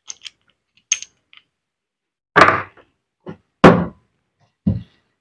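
Metal parts of a demolition hammer being handled on a workbench: a few light clicks, then two louder knocks about a second and a half apart, with softer knocks between them and near the end.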